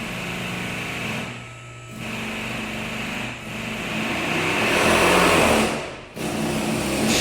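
Industrial power drill motor running in bursts with short pauses between them. The third burst is the longest and loudest.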